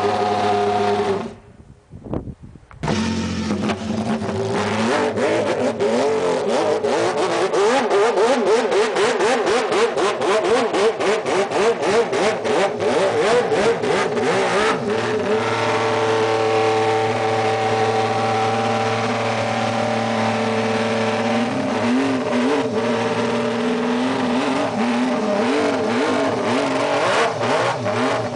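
Six-cylinder racing motorcycle engine spun on a roller starter, firing rapidly and unevenly, then settling about halfway through into a steady idle with a few throttle blips. The sound drops out briefly about two seconds in.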